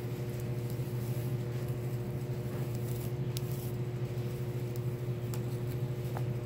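A steady low machine hum, like a ventilation unit or appliance running, with a few faint soft ticks above it.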